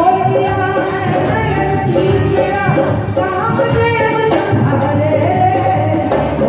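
A woman singing a North Indian folk-style song into a microphone, with instrumental accompaniment and percussion keeping a steady beat.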